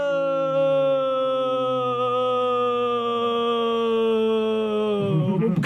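A very slow, drawn-out "hello" held as one long note, its pitch sinking gradually, breaking off near the end.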